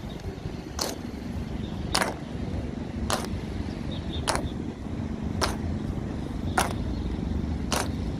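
Honor guards' boots striking the pavement in a slow, even march: a sharp click a little over once a second, seven in all, over a steady low rumble of traffic.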